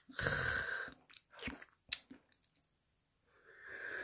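A person eating cooked crab: crunching and chewing, with a few sharp cracks of shell about a second in and another spell of crunching near the end.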